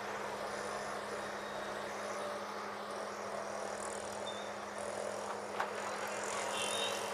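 Street traffic: auto-rickshaws and motor scooters passing, a steady wash of engine and tyre noise, with one short sharp knock a little past the middle.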